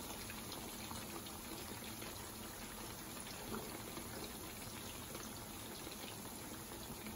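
Cornstarch-coated chicken pieces shallow-frying in a pan of hot oil: a steady soft sizzle and bubbling with faint scattered crackles.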